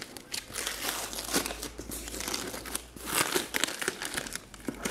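Brown paper wrapping and tape on a cardboard box being torn and pulled off by hand: irregular crinkling and ripping, with the loudest rip a little past three seconds in.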